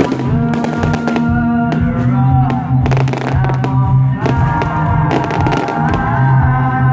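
Music playing, with fireworks going off over it: repeated sharp bangs and crackles throughout.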